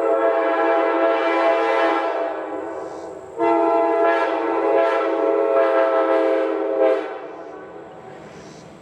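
Multi-chime locomotive air horn sounding a steady chord that fades off about three seconds in. It sounds again a moment later, another chime joining about a second after, and cuts off about seven seconds in, trailing away.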